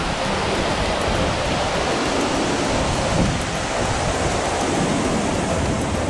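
Steady roar of falling water from the Uchan-Su waterfall in full flow.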